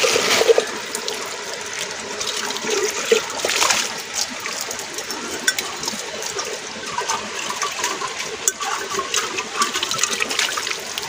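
Water sloshing and splashing as an aluminium cooking pot is rinsed in a shallow stream: water swirled around inside the pot and poured out onto wet rock, over the steady trickle of the stream.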